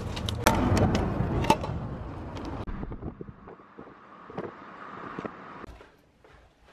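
Sharp clicks and knocks over a loud rushing noise, then the steady road and wind noise of a moving car, which fades out near the end.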